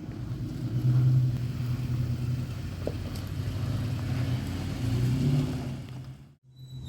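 Off-road vehicle's engine running, swelling louder twice as it is given throttle, about a second in and again about five seconds in.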